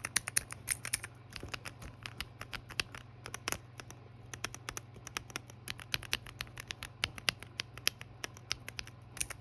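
Clickeez keycap fidget toys being pressed over and over: a run of sharp, irregular plastic clicks, several a second, with a short pause about four seconds in.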